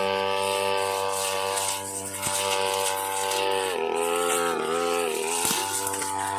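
Petrol brush cutter engine running at high throttle with a steady buzz; its pitch sags and recovers a few times in the second half as the blade bites into the woody brush.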